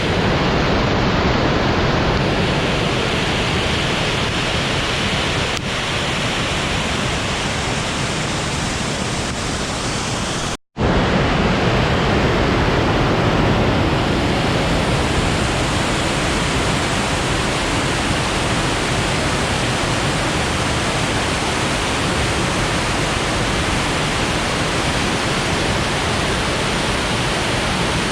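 Jasień river water rushing high after rainfall: a loud, steady noise with no let-up. It cuts out for an instant about ten seconds in.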